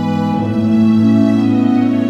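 Slow background music of long held notes.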